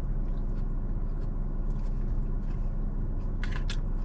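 Steady low hum inside a parked car's cabin with the engine idling, with a couple of short clicks about three and a half seconds in.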